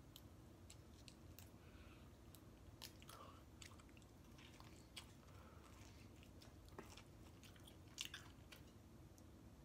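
Faint chewing and biting of pizza crust, with a few soft crisp clicks scattered irregularly through it.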